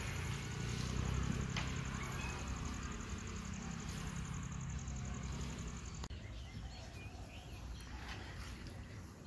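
Outdoor background noise with a steady low rumble that changes abruptly about six seconds in to quieter ambience, where birds chirp a few times.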